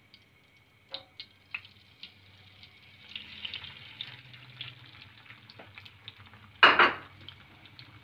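Beaten eggs poured into a hot oiled frying pan: a few small clinks, then light sizzling and crackling of the egg frying from about three seconds in. A brief loud knock comes near the end.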